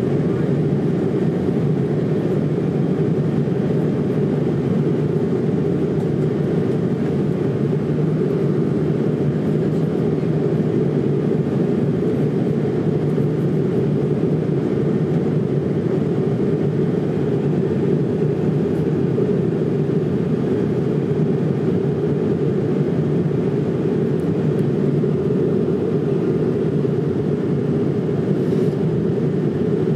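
Steady drone inside the cabin of an Airbus A220 during the climb after takeoff: its Pratt & Whitney PW1500G geared turbofans and the rushing air blend into an even, deep rumble that holds one level throughout.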